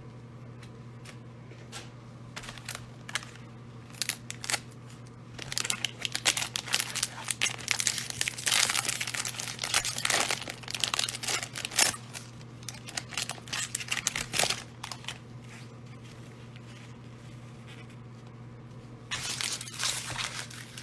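Wrapper of a Donruss football trading-card pack being torn open and crinkled by hand, in crackly bursts for about ten seconds from about four seconds in, then again briefly near the end. A faint steady low hum lies underneath.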